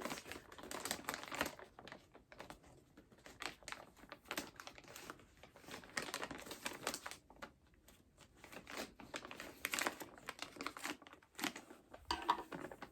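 Packaging crinkling and rustling in irregular bursts as a mailed package is opened by hand and its contents are handled.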